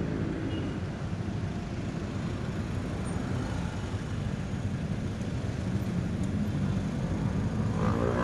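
City road traffic: vehicle engines running and passing close by, a steady low rumble.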